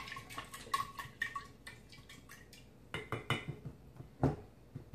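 A spatula stirring brown sugar into hot water in a half-gallon glass jar: irregular scrapes and light clinks against the glass, with a few louder knocks in the second half.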